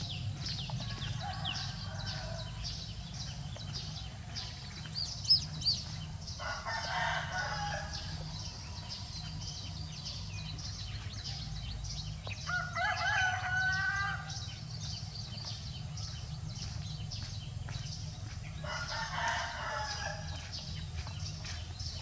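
Rooster crowing three times, each crow lasting about a second and a half, over a steady low hum.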